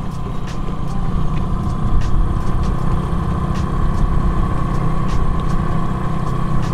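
Outboard motor running steadily at trolling speed, a constant low drone with a steady hum on top and scattered light ticks.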